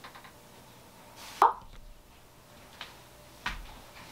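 A single sharp knock about a second and a half in, followed by a few fainter taps and clicks.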